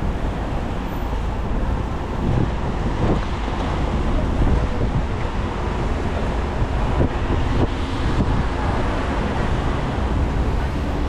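City traffic on a rain-wet road: tyres hissing on the wet surface over a steady low engine rumble from passing cars and a bus.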